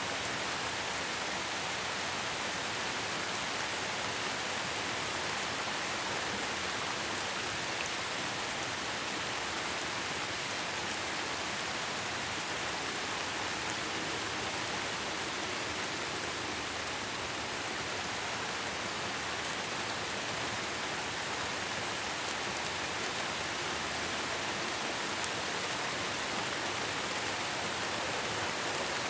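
Steady rain falling, an even hiss with the odd faint drop tick, no rise or fall in strength.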